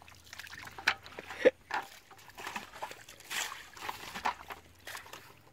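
Muddy water sloshing and splashing in a shallow puddle as a bucket is pushed and scooped through it, in a series of short, irregular splashes.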